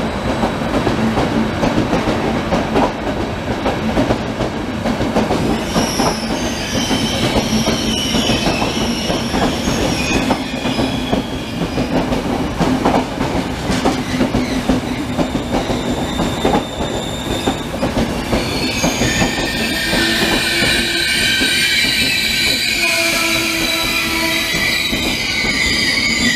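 Trenitalia Intercity passenger coaches rolling past at platform speed, wheels clattering rhythmically over the rail joints. From about two-thirds of the way in, a high, wavering multi-tone squeal of wheels and brakes joins and keeps on as the train slows.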